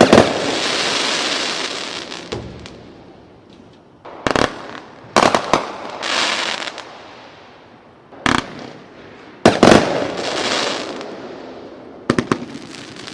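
Fireworks bursting: about six sharp bangs spread a second to a few seconds apart, each trailing off into a fading rush of noise.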